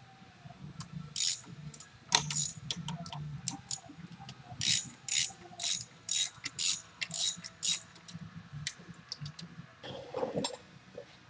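Hand ratchet wrench clicking through repeated strokes as bolts are worked loose on an engine. There are a few scattered strokes first, then a quick, even run of about eight strokes roughly half a second apart.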